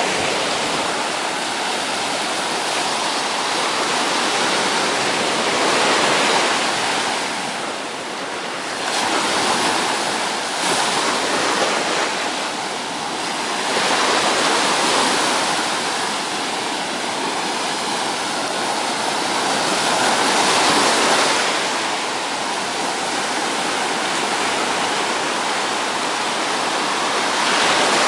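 Sea surf breaking close to shore and washing up the sand, swelling and easing every few seconds.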